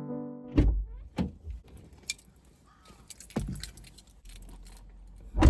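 Piano music fading out, then a few separate knocks and clicks of things being handled and set down, the loudest thump near the end.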